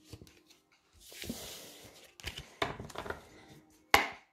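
Tarot cards being slid off a cloth-covered table and gathered into the deck: a soft sliding hiss, a few light clicks and rustles, then one sharp tap of the cards near the end.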